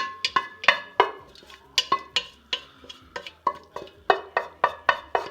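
A spoon repeatedly knocking and scraping against a metal pot, about three or four sharp ringing strikes a second, as the casserole mixture is scooped out into the baking dish.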